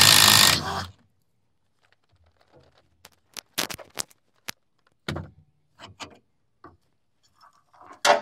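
Impact wrench running on a nut of the rotary cutter's slipper clutch, stopping under a second in. Then scattered sharp metallic clinks and knocks as loosened parts and tools are handled.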